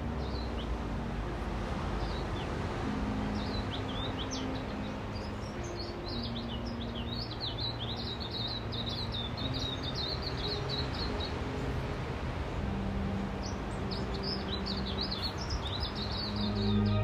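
A small bird twittering: rapid runs of short, high chirps in two long bursts, over a steady background rush.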